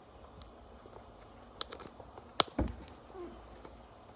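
Handling noise from the filming phone being moved and repositioned: a few light clicks, then a sharp knock about two and a half seconds in followed at once by a dull thump, and a faint rustle after.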